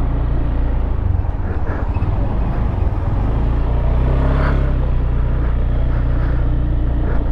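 Motorbike engine running steadily at low speed, a low hum that picks up a little about a second in.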